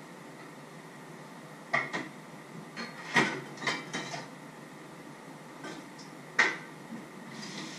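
Dishes and pans clinking and knocking at a kitchen sink: a handful of sharp, ringing knocks, loudest about three seconds in and again past six seconds.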